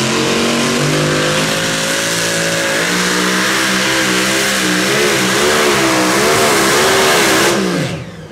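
Engine of a pulling tractor revving hard. It runs high and steady, its pitch wavers up and down in the last few seconds, then it falls away near the end.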